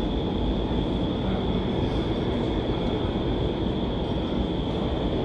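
Vertical wind tunnel's fans running: a steady low rumble of rushing air with a constant high whine above it.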